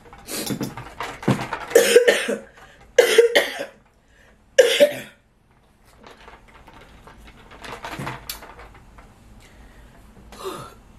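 A woman coughing hard, a string of loud coughs over the first five seconds and then quieter throat sounds, after almost choking on food.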